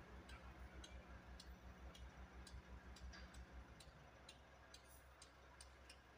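Near silence at a construction site: faint, irregular ticks and taps, about two a second, over a low throbbing hum that turns steady about four seconds in.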